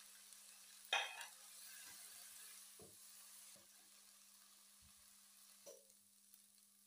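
Shredded vegetables sizzling faintly in a nonstick wok while a slotted spatula stirs and scrapes through them, with a sharp clack about a second in and a few softer knocks after. The sizzle eases off about halfway through.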